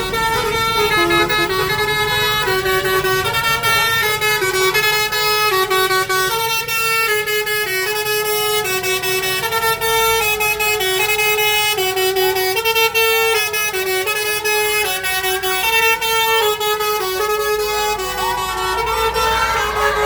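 Bus 'telolet Basuri' multi-tone horn playing a tune: several horn pitches sounding together, stepping from note to note without a break.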